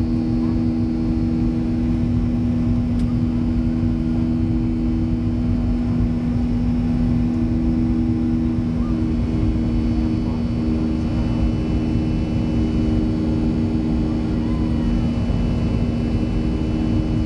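Cabin noise of a Boeing 737-400 climbing after takeoff: its CFM56-3 turbofan engines and the airflow give a steady, loud drone with a strong low hum of two close tones.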